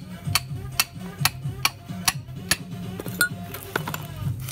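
Steel hammer striking a hollow piston pin in the small end of a Hino EH700 connecting rod, driving the pin through: about seven sharp metallic strikes, roughly two and a half a second, that stop about halfway through. A few lighter metal clinks follow as the parts are handled.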